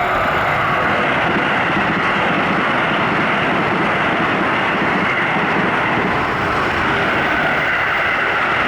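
Electric train passing close by at speed: a loud, steady rush of wheels on rail.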